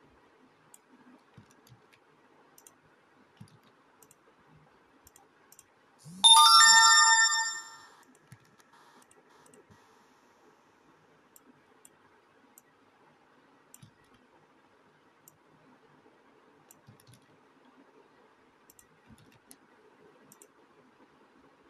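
Smartphone WhatsApp message notification tone: one bright chime of several pitches about six seconds in, fading out within about two seconds. Otherwise only faint hiss and a few faint ticks.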